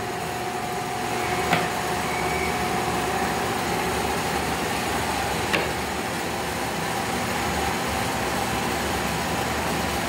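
Steady machine hum with a constant whine running through it. Two light knocks, about a second and a half in and again about five seconds in, come from an Alexandrine parakeet's beak knocking a lipstick tube against a hard surface.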